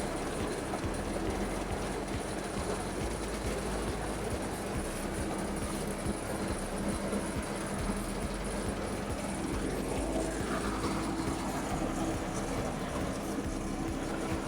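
A heavy engine running steadily with a constant low hum over an even rumbling noise.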